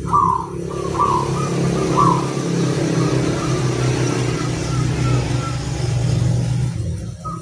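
A zebra dove's short repeated cooing notes for the first couple of seconds, then a motor vehicle's engine running steadily and drowning the bird out until near the end.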